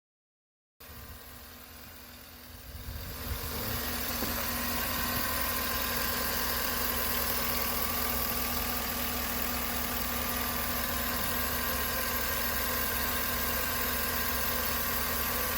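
2013 Chevrolet Suburban engine idling steadily after its lifter repair. It comes in faintly about a second in, grows louder over the next few seconds, then holds an even idle.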